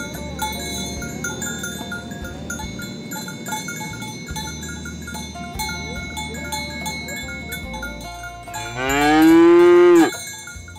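A cow (ox) gives one long, loud moo near the end, its pitch rising and then falling. Bell-like tinkling notes sound throughout.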